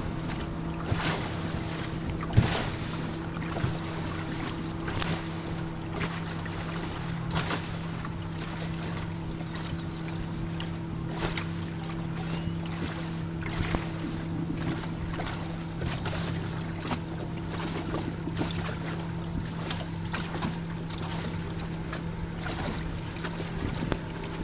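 A small motorboat's engine running steadily at cruising speed, with water splashing and slapping against the hull at irregular moments.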